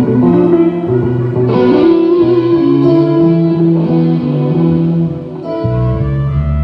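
Band music over a PA: a sustained electric guitar melody over a bass guitar line, with the bass notes growing much heavier near the end.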